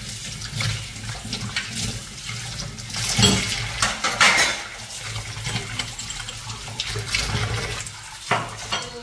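Tap water running into a stainless steel kitchen sink as a cup and bowl are rinsed by hand, with splashing and small knocks of crockery. It briefly grows louder about three and four seconds in.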